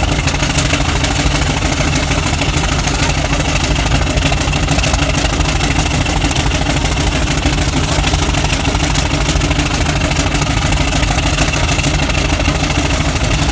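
A steam traction engine hauling a Scammell Junior Constructor lorry. The sound is a steady mechanical hum and rumble with no breaks.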